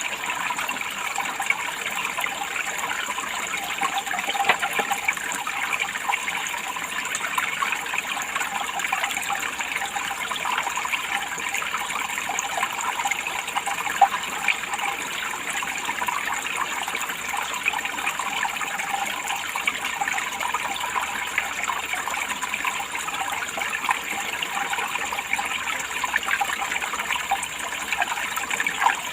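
Running water splashing and trickling steadily, with a fine spatter of small splashes.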